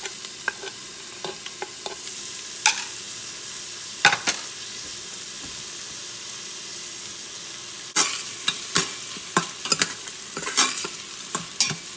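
Onions, garlic and cumin frying in ghee and oil in an Instant Pot on sauté mode, with a steady sizzle. A few sharp clacks come early. About two-thirds of the way in it gets louder, as a spoon stirs and scrapes against the pot in quick clacks.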